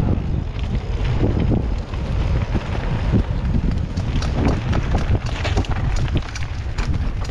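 Wind buffeting the microphone and mountain bike tyres rumbling over a rough dirt trail during a fast descent, with frequent clattering knocks from the bike over bumps.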